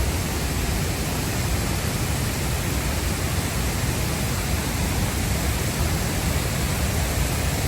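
Steady rush of a waterfall in heavy flow: an even, unbroken roar of falling and splashing water.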